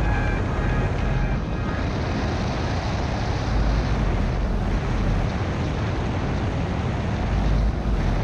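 Triumph Tiger 900 Rally Pro's inline three-cylinder engine running steadily at a cruise of about 55 to 60 on the speedometer, mixed with heavy wind rush on the bike-mounted camera's microphone.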